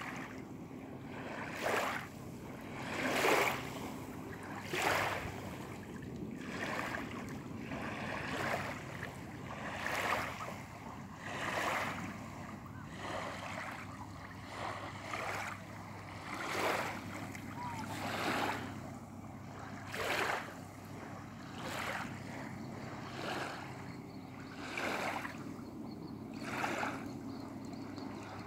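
Small waves lapping and splashing at the water's edge about every second and a half, over a steady low rumble.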